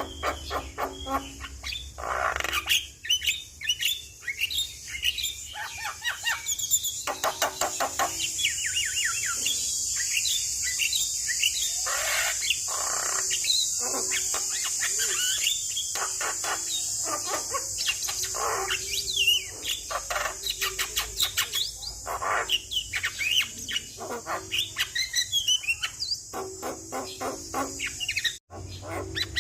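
Javan myna singing a fast, varied run of chirps, whistles and rattling clicks, over a steady high hiss. The song breaks off for an instant near the end.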